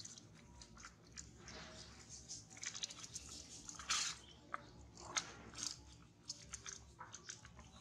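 Plastic snack wrapper crinkling and rustling in quick, irregular crackles as a baby macaque bites and tugs at it, loudest about four seconds in as the wrapper is dragged across the ground.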